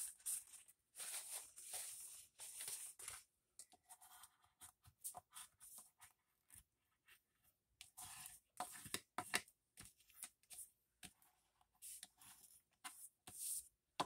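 A paper napkin rubbing and dabbing over a glued paper page to wipe off excess glue: faint, irregular scratchy rustles and small taps, busiest in the first few seconds and again about two-thirds of the way through.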